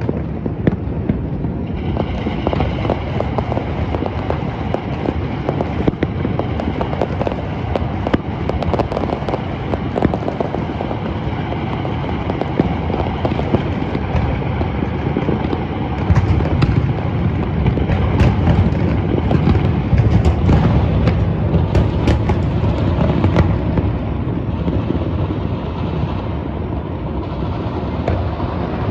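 Dense New Year fireworks and firecrackers going off without pause: overlapping booms and sharp cracks, growing heaviest a little past halfway through.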